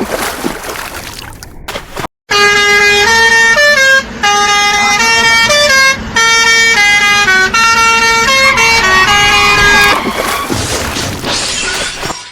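A loud musical horn plays a tune of stepped notes for about eight seconds, after about two seconds of noisy vehicle sound effects.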